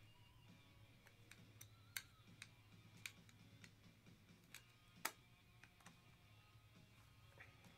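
Near silence with a low steady hum and scattered faint clicks, the two sharpest about two and five seconds in.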